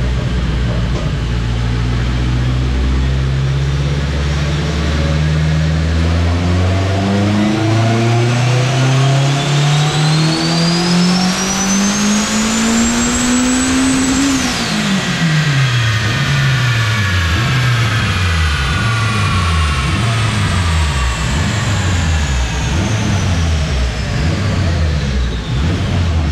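Turbocharged K20-swapped Honda Civic EG hatchback making a full-throttle dyno pull at about 11 psi of boost. The engine note climbs steadily for about fourteen seconds with a high whine rising alongside it. Then the throttle is lifted, the pitch drops suddenly, and the revs fall away through the rest as the car coasts down on the rollers.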